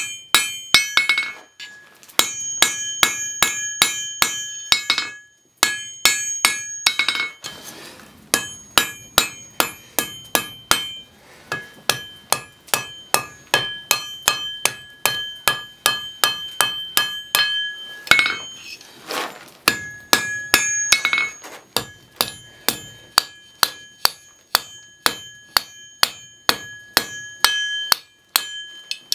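Blacksmith's hammer striking red-hot rebar on an anvil in a steady rhythm of about three blows a second, each blow ringing, with a few short pauses.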